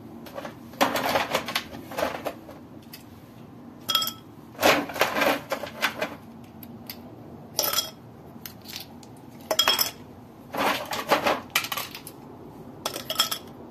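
Homemade ice cubes dropped one by one into a tall drinking glass, clinking against the glass and each other in about seven separate bursts. A few knocks leave a short glassy ring.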